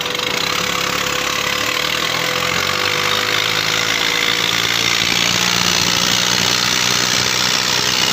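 Diesel tractor engines running hard under load as two tractors pull against each other. Their pitch rises about three seconds in, then holds steady over a dense noisy background.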